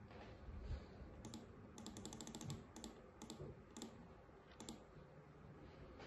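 Faint typing on a laptop keyboard: a quick run of keystrokes about two seconds in, then a few single clicks, after a soft low thump near the start.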